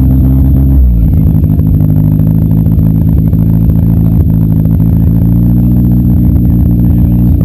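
Demolition derby car's engine running loud and steady; its note drops and changes about a second in, then holds even.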